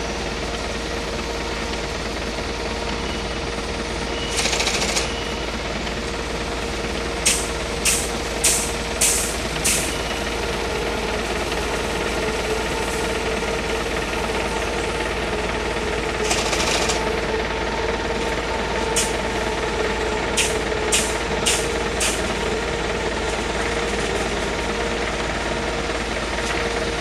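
Steady industrial machinery noise with a constant hum, broken by two short hisses and by two runs of sharp bangs: five in quick succession about a third of the way in, four more past two-thirds.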